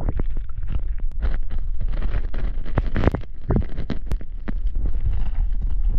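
Water moving over and knocking against an action camera held underwater: a steady low rumble with frequent clicks and thumps.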